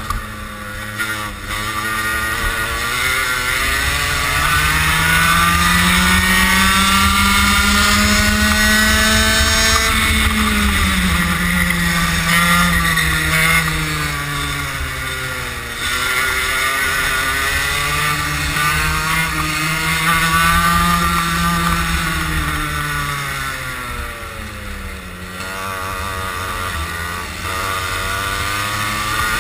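Racing kart engine heard from the kart itself, held on the throttle. Its pitch climbs for several seconds as the kart accelerates, then falls as it slows for a corner, and this happens twice before it climbs again near the end.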